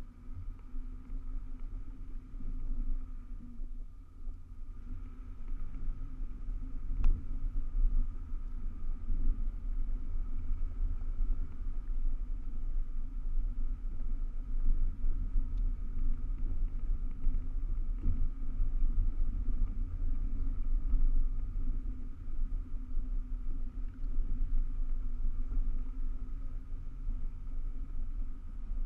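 A vehicle driving slowly over a rough dirt forest track: a steady low rumble of engine and tyres on the uneven ground, growing louder after the first few seconds, with a single sharp click about seven seconds in.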